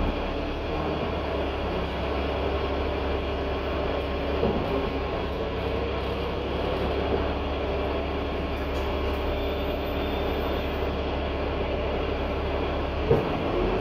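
Cabin sound of a 2021 Gillig Low Floor 40 ft transit bus under way: its Cummins L9 diesel runs steadily over road noise. A small knock comes partway through, and a sharp thump comes near the end.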